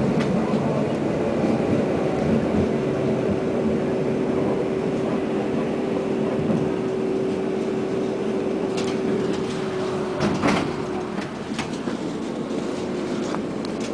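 Konstal 105Na tram running along the line, heard from inside the car: a steady rumble of wheels and running gear with a steady whine held through most of it. A few sharp clicks and a knock come about ten seconds in.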